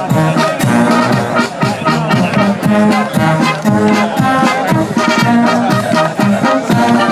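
Music led by brass instruments over a steady beat.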